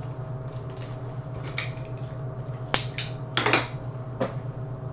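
Several short clicks and plastic crinkles, with one sharper snap about halfway through, from handling plastic trading-card sleeves and holders.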